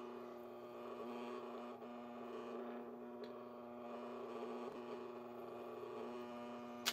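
Steady motor hum from a Disney Mickey Ears stir-arm popcorn popper as its stirring arm turns through hot bacon grease. Right at the end comes a single sharp pop as a test kernel bursts in the grease.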